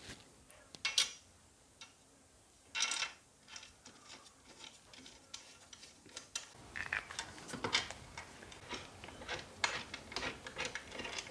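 Small metallic clicks, taps and scrapes of bolts and washers being set into a motorcycle's metal rear luggage rack and started with a hex key. There are a couple of sharper clicks early, then from about halfway a busier run of small ticks and rubbing as the bolts go in.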